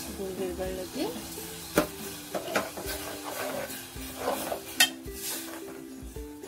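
A steel spoon stirring jaggery in a little water in an aluminium pot, scraping around the pot, with two sharp clinks of spoon on metal about two and five seconds in.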